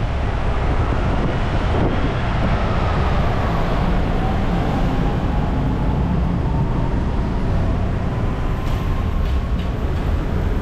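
A vehicle running close by: a steady low rumble with a faint whine that rises slowly in pitch.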